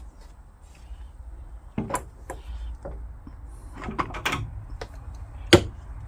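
Tools and parts being handled: a few scattered knocks and clatters, the loudest a single sharp knock near the end.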